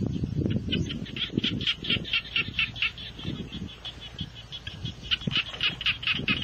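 An animal's rapid chattering call, about eight or nine notes a second, in two bouts, one near the start and one near the end, with irregular low thuds and rustling underneath.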